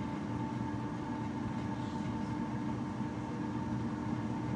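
GoWise air fryer running a cooking cycle: its fan gives a steady, unchanging hum with a constant higher whine.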